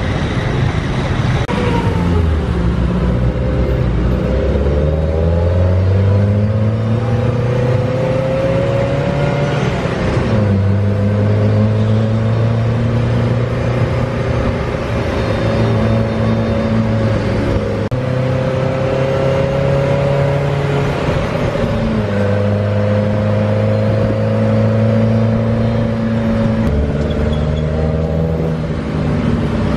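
Tuk-tuk engine heard from inside the open cab as it pulls away. The engine note climbs over several seconds, then drops and picks up again a few times as it changes gear, over steady road noise.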